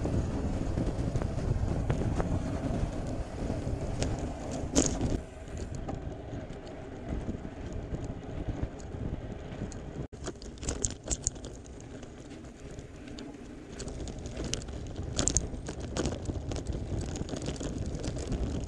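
Wind rushing over the microphone of a camera on a moving gravel bike, with a steady low rumble of tyres rolling on the road and a few sharp clicks and rattles from the bike. The rush is loudest for the first few seconds, then eases, with a momentary drop-out about ten seconds in.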